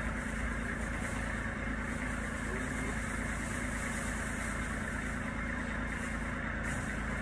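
An engine idling steadily, a constant low hum that does not change.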